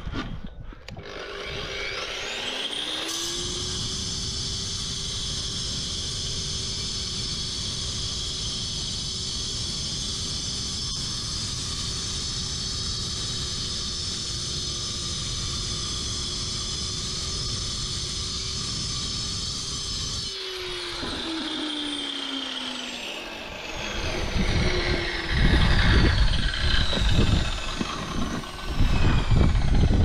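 Diamond-blade cut-off saw spinning up with a rising whine, then cutting through a concrete paving block with a steady high whine and grinding hiss for about seventeen seconds before the blade spins down. A few seconds of louder, irregular knocking and scraping follow near the end.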